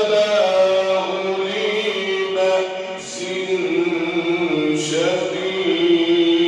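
A male Quran reciter chanting in the melodic tajweed style, drawing out long held notes that step between pitches, with brief hissed consonants about three and five seconds in.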